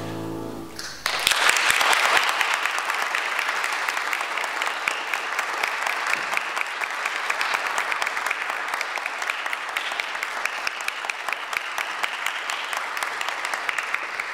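The last chord of a grand piano dies away in the first second; then an audience starts applauding and keeps clapping steadily.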